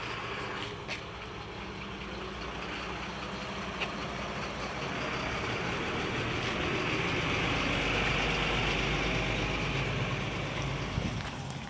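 CAT M314 wheeled excavator's diesel engine idling steadily, with a hiss that grows louder midway and eases near the end.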